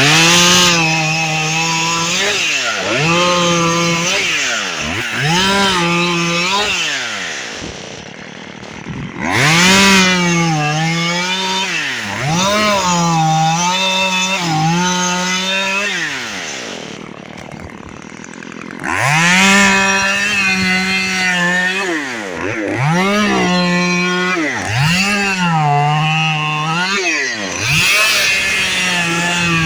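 Chainsaw cutting cabbage palm fronds, its engine revving up and dropping back again and again. It falls to a low idle twice, about eight and seventeen seconds in.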